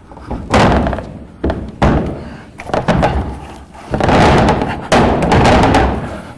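Wooden sauna wall panels thudding and knocking as the front door panel is set into place, several heavy knocks in a few seconds with scraping between them.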